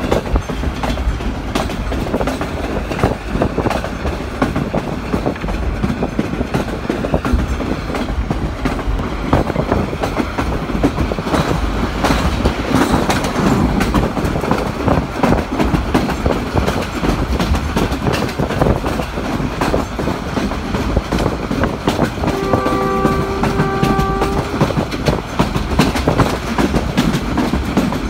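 Passenger train running at speed, heard from inside a coach: a steady rumble and rattle with the clickety-clack of wheels over rail joints. About 22 seconds in, a horn sounds for about two seconds.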